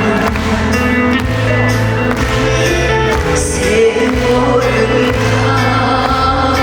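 Traditional Korean trot song performed live: a singer over a backing band or track, with a steady beat and a walking bass line.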